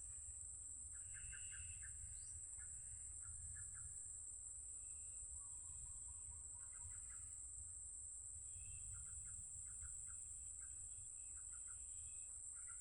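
Birds calling in quick runs of short chirps that come every second or two, over a steady high-pitched whine and a low rumble.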